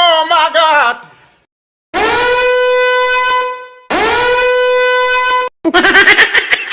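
Meme sound effects in quick succession: two long, steady horn-like blasts on the same note, each about a second and a half, with a short gap between. A wavering, wobbling tone fades out at the start, and a warbling sound cut with clicks starts near the end.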